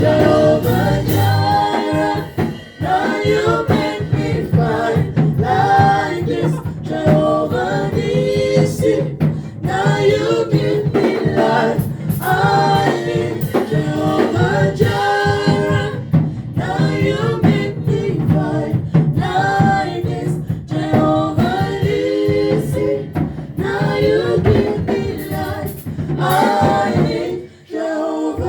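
Gospel singing over a steady low accompaniment, with a short break near the end.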